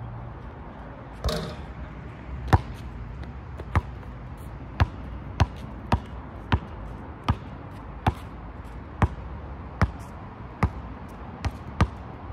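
Basketball bouncing on an outdoor asphalt court: sharp single bounces every half second to a second as it is dribbled, starting about two and a half seconds in. Just over a second in, a brief rattling hit as a jump shot reaches the hoop.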